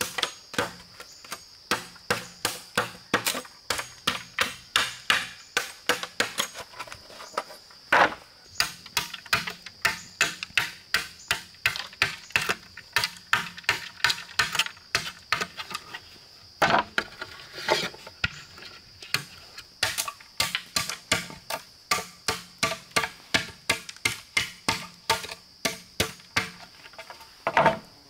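Blade chopping wood over and over, about two to three blows a second, with a few harder blows, over a steady high-pitched hum.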